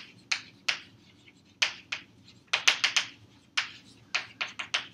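Chalk writing on a blackboard: a run of short, sharp taps and scratches as the letters go down, some single and some in quick clusters of three or four.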